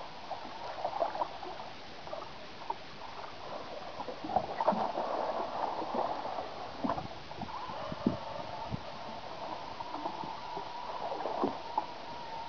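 Water sloshing and lapping against a small boat's hull, with scattered light knocks and clicks.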